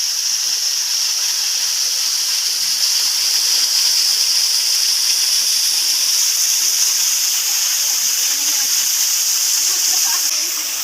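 Waterfall rushing steadily: a loud, even hiss of falling water with no breaks.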